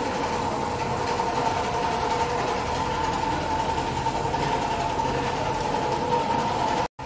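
Steady mechanical hum with a constant whine running through it, cutting off suddenly near the end.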